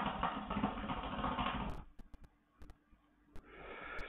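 KM hookah bubbling in its water base as a long draw is pulled through the hose, a rapid crackling gurgle that stops about two seconds in. Near the end comes a soft breathy exhale of the smoke.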